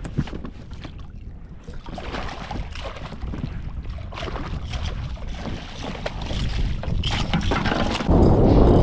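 Wind buffeting the microphone and water splashing and slapping against a small fishing boat, with a sudden louder rush of wind noise near the end.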